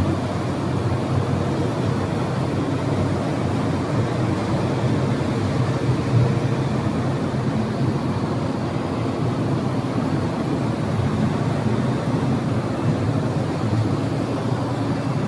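Steady low rumble of a running 12 kW laser cutting machine and its support equipment, with no breaks or sudden sounds.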